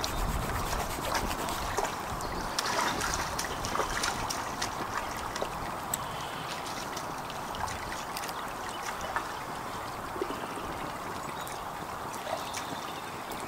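Stream trickling steadily, with scattered sharp crackles and clicks over it.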